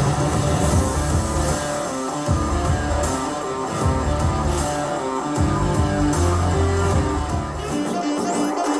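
Rock music with guitar playing through a Mackie Thump 212XT powered PA speaker, picked up by a microphone in the room. The deep bass drops out briefly a few times.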